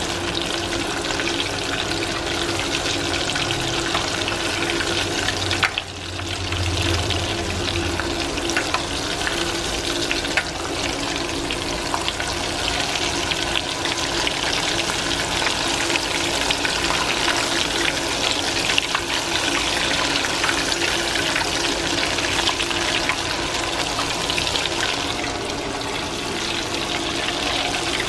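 Breaded mozzarella sticks deep-frying in a saucepan of hot oil: a steady, dense crackle and sizzle of bubbling oil, dipping briefly about six seconds in.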